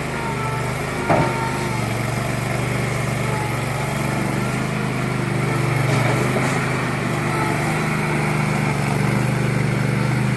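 Backhoe loader's engine running steadily, with one sharp knock about a second in.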